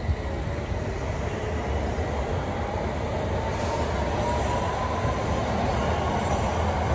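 London Underground S8 Stock Metropolitan line train pulling out of the station, its traction motors giving a whine that rises steadily in pitch as it gathers speed, over the rumble of wheels on the rails.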